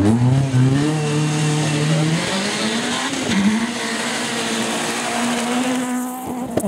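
Škoda Fabia rally car approaching hard on a dirt stage and passing close. The engine note climbs, dips briefly about three seconds in, then climbs again, over a rising hiss of tyres on the loose surface.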